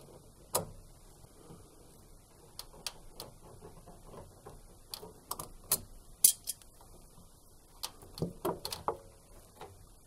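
Scattered light metallic clicks and clinks of water pliers working a wire spring hose clip loose, as a washing machine's rubber sump hose is freed from the pump chamber. The sharpest click comes a little past halfway, with a run of smaller clicks near the end.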